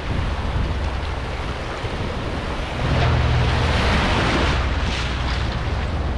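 Dive boat's engine idling with a steady low hum while small waves wash onto the sand; the wash swells about three seconds in.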